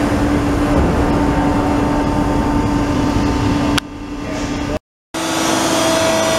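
Steady machine hum with a constant low tone from a Bystronic Xact Smart 160 hydraulic press brake running idle. It drops abruptly a little past halfway, then breaks off into a moment of silence before resuming.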